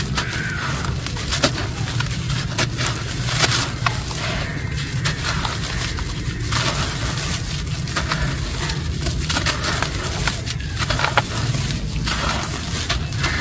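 Soft, dry reused cement being crushed by hand and crumbling into water, with irregular crackling and crunching.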